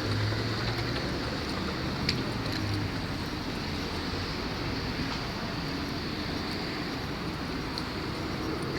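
Steady road traffic noise, with a low vehicle engine hum through the first three seconds and a single short click about two seconds in.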